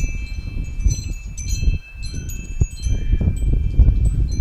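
Wind chimes ringing: several clear metal tones struck at irregular moments, each ringing on, over a steady low rumble.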